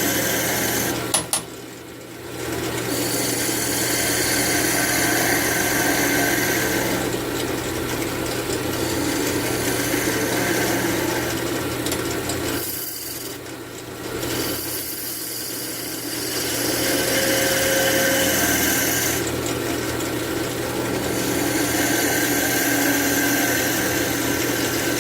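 Wood lathe running with a steady motor hum while a sharp turning tool cuts the spinning cherry wood: a continuous rasping hiss of shavings peeling off. The cutting noise drops away briefly twice, about two seconds in and about halfway through.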